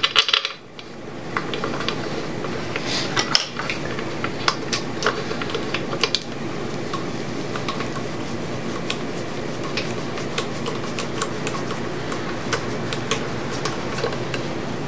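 Bolts being threaded by hand into the front cover of a 5.3L LS V8 on an engine stand: scattered light metallic clicks and ticks from the bolt and a small driver, with a metal clink right at the start, over a steady hum.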